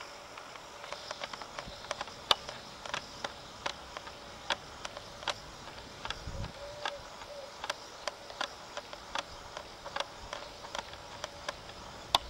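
Irregular sharp clicks, about two or three a second, from a Samoyed puppy gnawing a rubbery foam clog.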